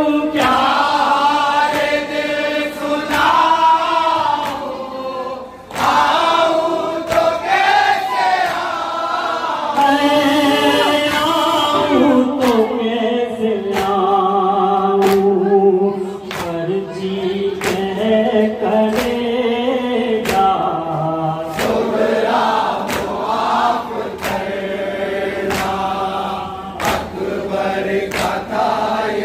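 A noha, a mourning lament, chanted by a lead reciter and a chorus of male voices. A steady rhythm of sharp slaps runs under it, which is the group beating their chests (matam) in time with the chant.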